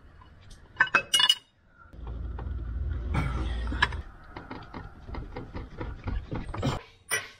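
Hand tools working in a car's engine bay: sharp metal clinks about a second in, a low rumble for about two seconds, then a run of quick ratchet clicks as a fastener is turned.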